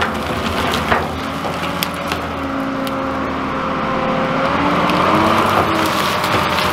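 Front-end wheel loader engine running under load as its bucket shoves through brush and dead logs. Branches snap and crack at the start and about a second in.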